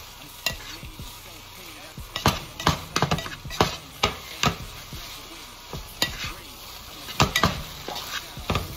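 Eggs and tater tots sizzling in a hot frying pan while a spatula stirs them, scraping and knocking irregularly against the pan.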